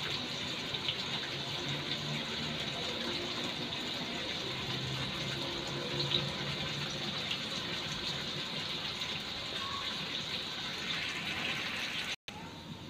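Potato cubes frying in hot oil in a wok, a steady sizzle that cuts out for a moment near the end.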